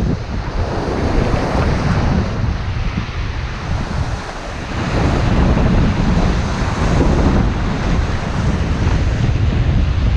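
Sea surf washing against the shore, with wind buffeting the microphone in a heavy low rumble. It eases briefly about four seconds in, then builds again.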